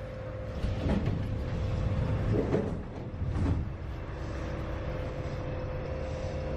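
Inside a Santiago Metro Line 5 car as the train stands at a station and its doors slide open. A few louder noises come about one to three and a half seconds in, then the stopped train gives a steady low rumble with a held hum.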